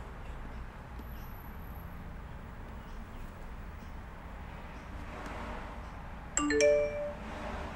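Low steady background hum, then near the end a short chime: several notes sounding together as one chord, dying away within about a second, typical of an Intel iMac's startup chime on power-up.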